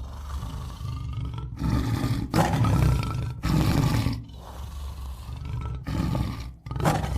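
Tiger roaring and growling in a series of rough roars, each about a second long, with short gaps between them.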